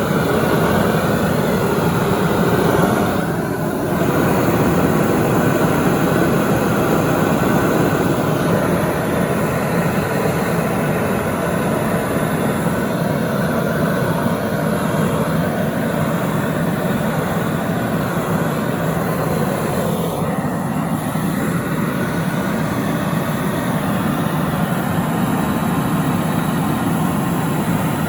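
Gas torch burning steadily with an even rushing noise, heating a model-engine crankshaft for silver soldering.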